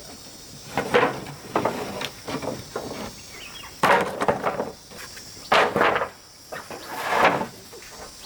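About half a dozen heavy blows from a hand tool at irregular intervals, each with a short ringing tail, over a steady insect buzz.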